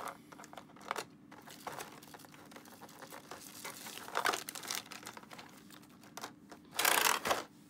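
Clear plastic packaging (a blister tray and a plastic bag) crinkling and crackling as it is handled, with a louder rustle about four seconds in and the loudest crinkle about seven seconds in.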